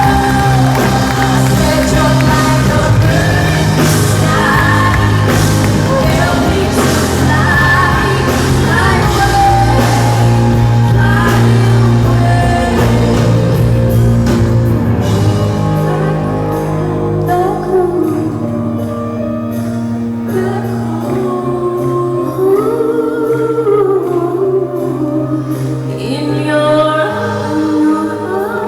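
Live pop-rock concert music: a band playing with a woman singing the melody, heard with the reverberation of a large hall. About eighteen seconds in, the heavy bass and drums fall away, leaving the voice over lighter accompaniment.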